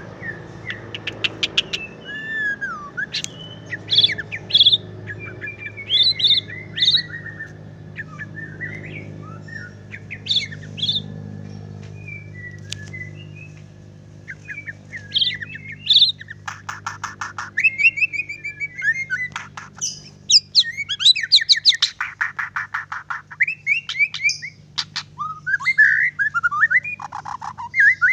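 White-rumped shama singing: spaced clear whistles and chattering phrases, turning about halfway through into a dense, louder run of fast rattling trills.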